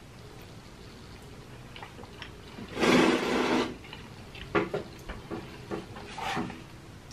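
A person sips noisily from a paper drink cup: one loud slurp lasting just under a second, about three seconds in. Then come a few short wet mouth clicks and smacks while eating.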